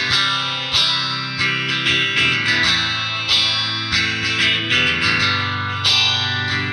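Electric guitar with an EMG DG-20 active single-coil pickup set, played on the neck pickup: single notes and chords are picked with a new attack every half second to a second, each ringing on with long sustain.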